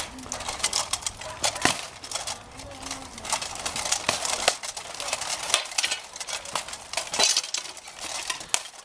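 Metal armour and weapons clanking and clinking during a full-contact armoured sparring bout with a chain flail and a pronged polearm: irregular sharp metal knocks, jingles and rattles.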